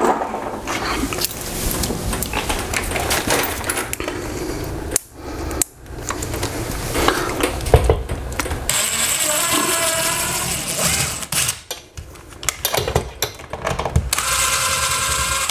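Cordless drill running in two runs, one of about two seconds in the middle and a shorter, higher-pitched one near the end, drilling holes into the wall through a TV mount plate. Knocks and clatter of handling come between.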